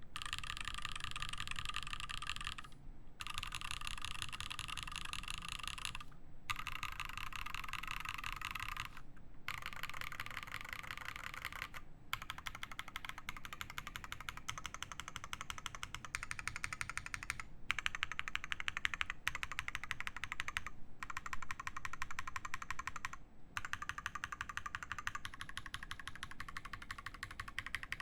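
Fast typing on an Iron180 mechanical keyboard with a brass plate, lubed Zaku switches and GMK keycaps: a rapid, continuous stream of keystrokes broken by brief pauses every few seconds.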